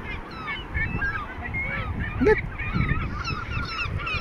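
A flock of gulls calling, many short squawks overlapping several times a second, over a low rumble.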